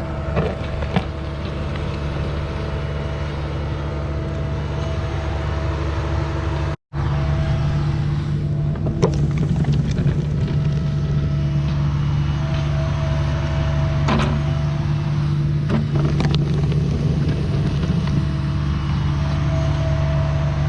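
Mini excavator's diesel engine running steadily, with a few sharp knocks scattered through.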